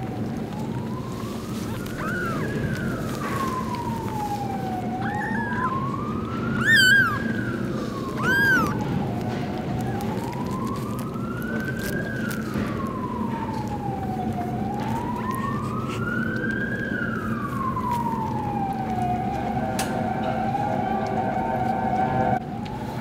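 A siren wailing, its pitch rising and falling slowly about every five seconds; near the end it holds a steady tone, then stops abruptly. A newborn kitten gives a few short high mews in the first half.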